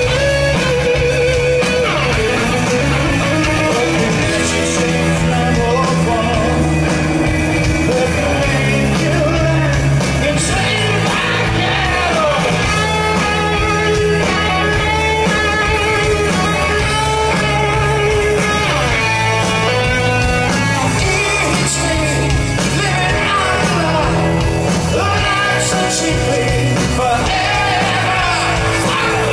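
Live rock band playing: electric guitar and drums with a male lead singer, amplified through the stage PA.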